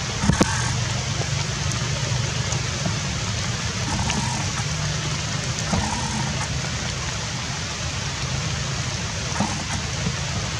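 Steady outdoor background noise: an even hiss with a low hum underneath and a few faint clicks.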